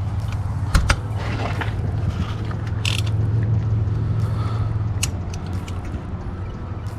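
Metal hand tools clinking and rattling, with a few sharp clicks spaced about two seconds apart, over a steady low hum.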